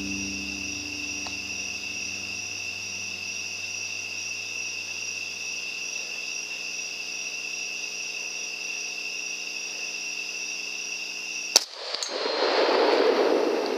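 A steady chorus of night insects such as crickets, then near the end a single 6.5 calibre rifle shot at a wild hog, followed by about a second and a half of rushing noise as the report dies away.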